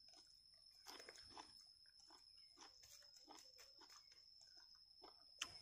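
Faint mouth sounds of a person chewing a mouthful of food: soft, irregular smacks and clicks, over a thin steady high-pitched tone.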